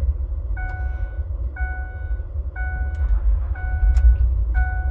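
2005 Ford F-150 engine running with a steady low rumble right after a fill-up, while a cabin warning chime dings about once a second, five times. It is running normally after refuelling, the sign that the faulty evap purge valve was the cause of the no-start after filling up.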